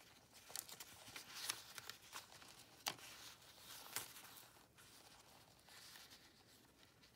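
Faint paper rustling and soft little clicks as the pages of a handmade journal are turned and handled.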